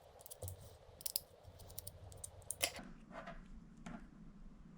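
Faint, scattered small clicks and taps: a small screwdriver working a tiny screw out of a laptop cooling fan's plastic housing, with the parts being handled.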